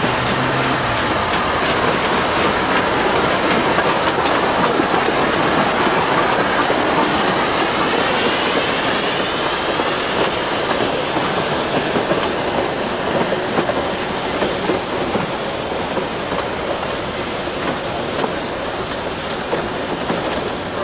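Metre-gauge steam train, the 230T E327 tank locomotive and its coaches, rolling slowly past, wheels clacking over the rail joints. A rising squeal from the wheels comes in about eight seconds in.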